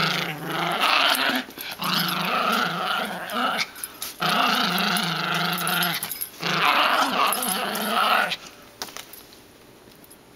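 Small dog growling in play while tugging on a rope toy: a string of long, loud growls with short breaks, stopping about eight seconds in.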